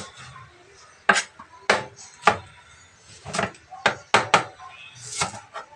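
Large kitchen knife chopping an onion on a plastic cutting board: about eight sharp knocks at uneven intervals, starting about a second in.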